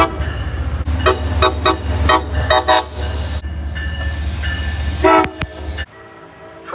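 MBTA commuter-rail diesel locomotive horn sounded in a run of short toots over the locomotive's steady low engine rumble, with a hiss of air partway through.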